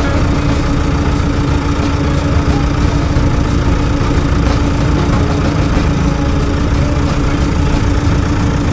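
Vehicle engines idling in stopped traffic: a steady low rumble with a constant hum running through it.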